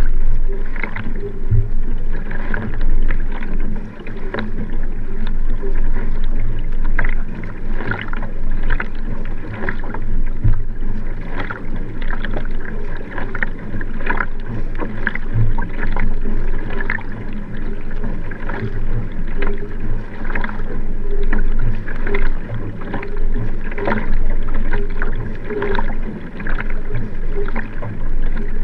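Nelo Vanquish 3 sprint kayak under racing pace: water rushing along the hull with a regular splash as each paddle blade catches the water, about one to two strokes a second.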